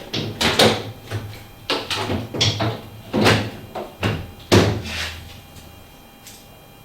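A washing machine's top panel being put back on: a series of knocks and clunks, about six in the first five seconds, the loudest about four and a half seconds in, then it goes quiet.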